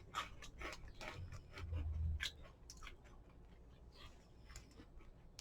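Faint crunching and chewing of a crunchy Cheetos corn snack, as irregular small crackles, with a brief low hum about two seconds in.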